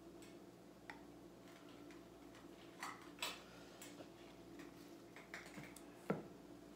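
Faint steady hum with a few scattered soft clicks and taps, the sharpest about six seconds in.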